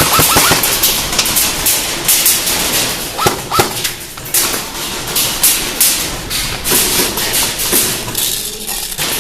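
Airsoft guns firing during indoor close-quarters play. A rapid burst of automatic fire ends about half a second in, then comes a run of scattered single shots and sharp BB impacts on hard surfaces.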